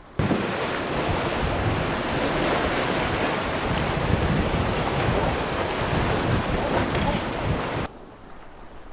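Wind buffeting the microphone over the wash of sea surf on a rocky shore: a loud, even rushing noise with a gusty low rumble. It starts abruptly and drops away suddenly near the end.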